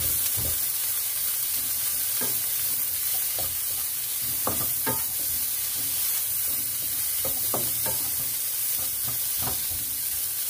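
Pulled pork with onion and peppers sizzling in a nonstick frying pan, stirred with a wooden spatula. A steady sizzle runs under irregular scrapes and knocks of the spatula against the pan.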